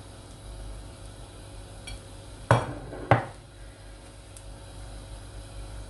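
Two sharp clinks of a metal spoon and ceramic plate knocking together, about half a second apart, a couple of seconds in, over a low steady background.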